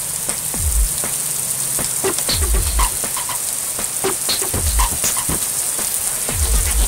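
Heavy rain pouring steadily onto pavement in a constant hiss. Underneath it, a low pulse repeats about every two seconds, the beat of electronic music.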